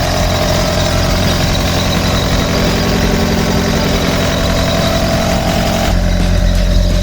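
Kobelco SK60-8 hydraulic excavator's diesel engine running steadily. A higher steady whine over it stops about six seconds in, and the low engine note grows stronger.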